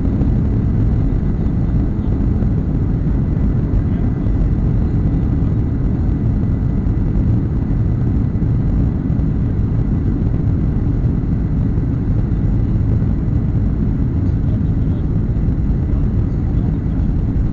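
Cabin noise of a Ryanair Boeing 737 rolling on the ground, heard from a seat over the wing: the jet engines and airframe give a loud, steady low rumble with a faint high whine held level.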